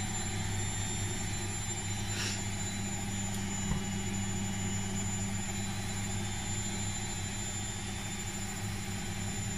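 Washing machine on its spin cycle: a steady low machine hum that holds at one pitch.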